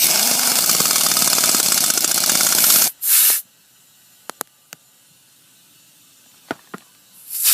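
Impact wrench running a lug nut down onto the wheel: a loud hissing, rapid hammering rattle for about three seconds, then one short second burst, followed by a few light clicks.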